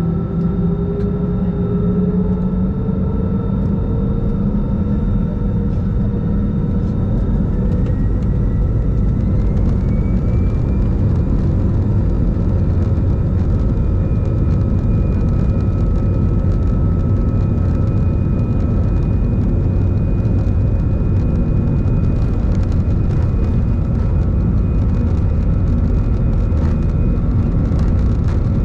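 Airbus A320's jet engines heard inside the cabin over the wing, spooling up with tones rising in pitch over the first ten seconds or so and then holding steady, over a loud steady rumble as the airliner rolls on the runway for departure.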